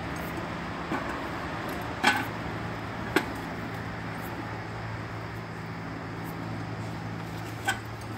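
A few short clinks and knocks from the horse's tack and the aluminium step ladder as a rider climbs up and mounts a saddled horse, heard over a steady low hum. The sharpest knocks come about two and three seconds in, and another comes near the end.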